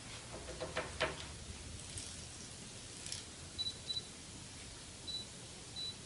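Canon EF 75-300mm f/4-5.6 III USM zoom lens autofocusing on a camera. Its focus drive grates in a short rasping burst about a second in, then the camera gives several short high focus-confirmation beeps. The gritty, irregular sound is metal catching inside the lens, a fault in its mechanism.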